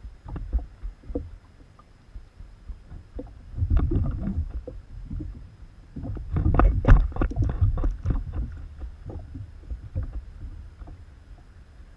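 Irregular knocks, thumps and rattles on a plastic fishing kayak, over a low rumble from the rattling camera mount, while a hooked carp is played beside the boat. The knocks are busiest and loudest about four seconds in and again from six to eight seconds.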